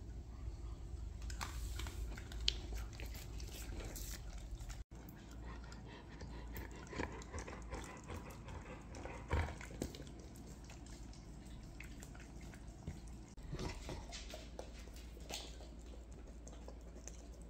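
A Jack Russell terrier licking peanut butter off a fingertip and a wooden lolly stick: wet licks and lip smacks with small clicks.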